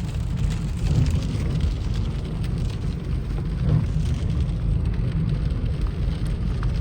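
Strong wind buffeting the microphone: a loud, continuous low rumble that gusts up and down.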